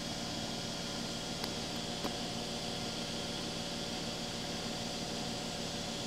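Electrolux front-loading washing machine spinning at its maximum speed: a steady whirring hum with a few fixed tones over it and no rattling or knocking, the sign of a stacked washer-dryer standing steady on antivibration feet. Two faint ticks come about one and a half and two seconds in.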